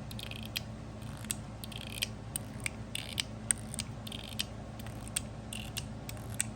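Metal mechanical fidget slider being worked back and forth: a quick, irregular run of sharp clicks, about two or three a second, several of them ringing with a brief metallic ping.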